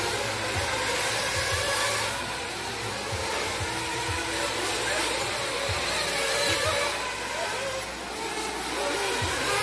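Small nitro glow engines of 1/8-scale RC buggies buzzing at a high pitch, several at once, the pitch rising and falling as the throttles open and close.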